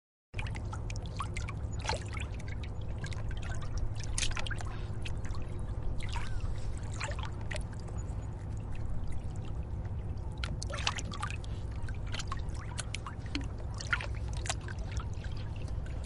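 Sea waves breaking and washing in surf: a steady low rumble with frequent splashes and fizzing foam, cutting in after a brief silence.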